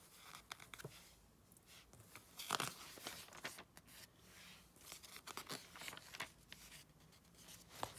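Magazine pages being turned by hand: several quick paper rustles and swishes, the loudest about two and a half seconds in.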